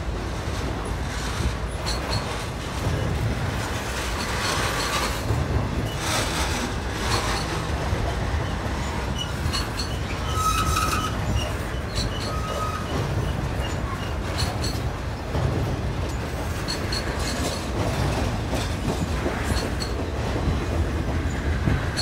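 Intermodal freight train cars loaded with trailers rolling past at speed: a steady low rumble of wheels on rail with clicks over the rail joints. Brief high wheel squeals come through about ten and twelve seconds in.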